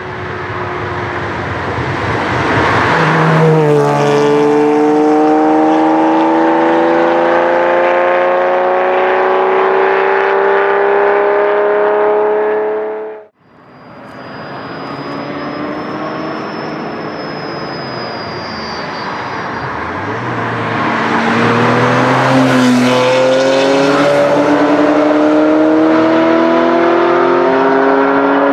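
Ferrari Testarossa flat-twelve accelerating hard toward and past, its note climbing steadily in one long pull and very loud. The sound cuts off abruptly about halfway through, then two more Ferrari engines build up and accelerate past, their pitch dropping as they go by and then rising again.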